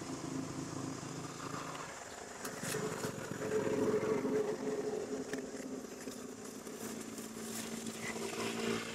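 An engine running steadily, loudest about four seconds in, with scattered crackles of dry leaves.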